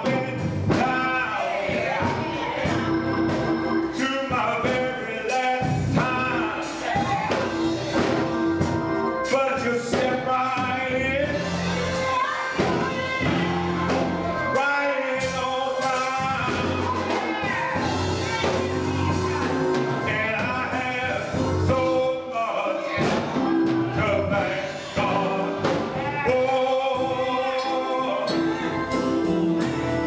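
Gospel choir singing, accompanied by a Yamaha Motif XF7 keyboard.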